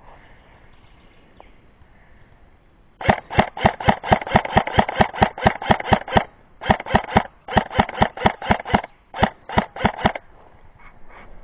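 Airsoft gun firing full-auto in four bursts of rapid, evenly spaced shots, several a second, starting about three seconds in and stopping about ten seconds in.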